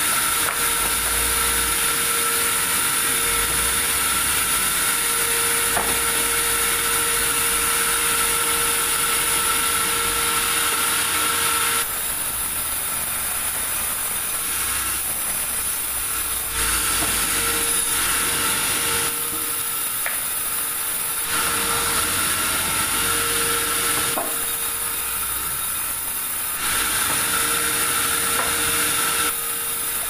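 Band sawmill running and its blade sawing through a large meranti log, a steady whine over a hissing noise. The noise drops a little and comes back several times as the cut pauses and resumes.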